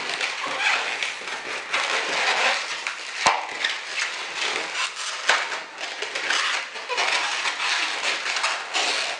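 Latex modelling balloon squeaking and rubbing under the hands as it is twisted into bubbles and ear twists, with a sharp click about three seconds in and another about five seconds in.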